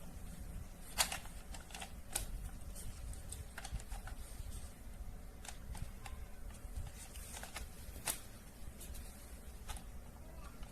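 Scattered light clicks and taps at an irregular pace, with sharper clicks about one, two and eight seconds in, as of small hard objects being handled.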